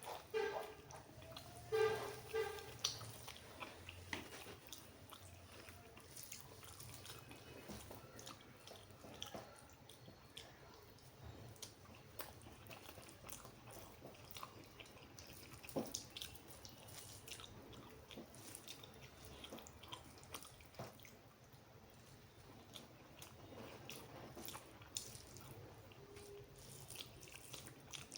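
Faint wet mouth sounds of someone eating rice with egg curry: chewing, with many small smacking clicks scattered throughout.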